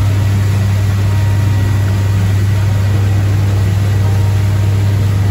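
Boat's outboard motor running steadily underway at speed: one unchanging low drone, with a hiss of rushing water and wake beneath it.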